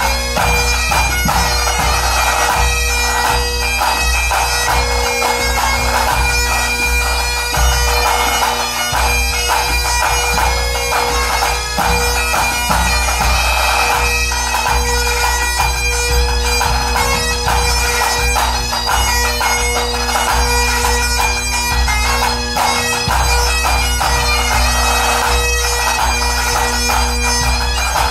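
A pipe band playing: Great Highland bagpipes sound a melody over their steady drones, while snare drums and a bass drum keep time.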